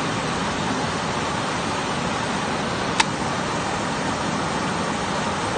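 Steady rushing of a waterfall and river water. A single sharp click sounds about three seconds in.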